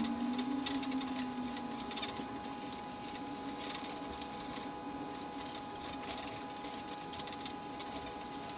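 Wet sanding with fine 2000-grit sandpaper on a bicycle's coating: an irregular scratchy rubbing from the paper strokes, over a faint steady tone.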